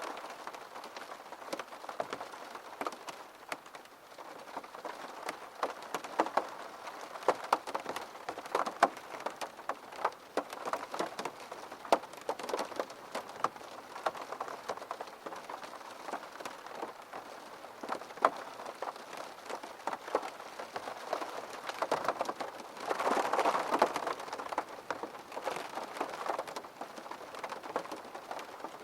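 Steady rain, with many individual drops ticking sharply on a surface over an even hiss. It swells louder for a second or two about three quarters of the way through.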